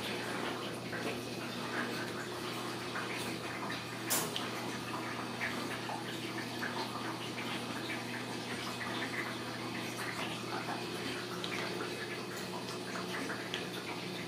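Ragdoll kittens scampering on a tile floor: scattered light clicks and taps of paws and claws and the odd rattle of a wire pen, with one sharper click about four seconds in, over a steady low hum.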